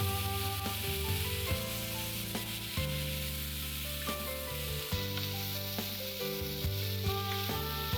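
Chicken pieces sizzling in an onion-tomato masala in a frying pan while being stirred, with occasional light knocks and scrapes of the spoon against the pan. Background music plays under it.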